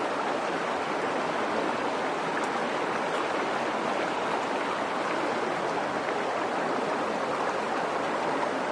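Shallow rocky stream running, a steady rush of water.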